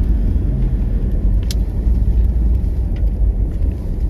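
Steady low rumble of a 4x4 vehicle on the move, its engine and road noise, with a faint click about one and a half seconds in.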